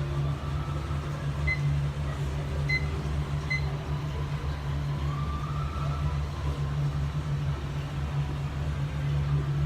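A faint siren tone wavering and briefly rising over a steady low hum, with three short high beeps in the first few seconds.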